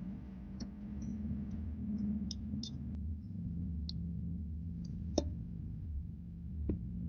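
Scattered small clicks and taps of an Itel keypad mobile phone being opened by hand, the sharpest about five seconds in, over a steady low hum.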